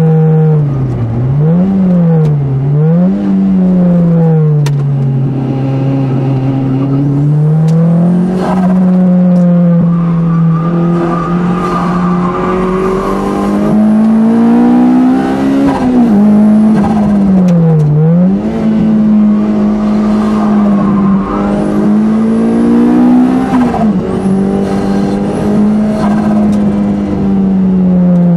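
Lotus Elise's engine heard from inside the car during hard track driving. Its note rises as it accelerates and falls as it lifts off or changes gear, several times over, with wind and road noise underneath.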